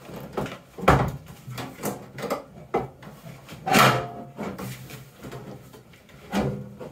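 Sheet-metal outer cover of a microwave oven being pulled and worked loose while the unit is shifted about: a series of knocks and clunks of metal, the loudest about four seconds in.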